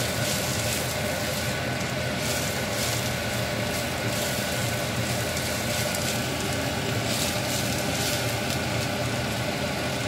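Potato wedges and onions sizzling in a nonstick frying pan as a spatula stirs and tosses them, with a few brief scrapes. A steady mechanical hum runs underneath.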